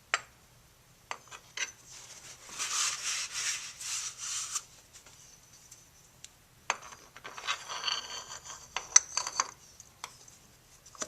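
Hands working on gearbox parts: a few light clicks and knocks, and two stretches of rubbing, one from about two seconds in lasting some two seconds, the other from about seven to ten seconds with a sharp click near nine seconds.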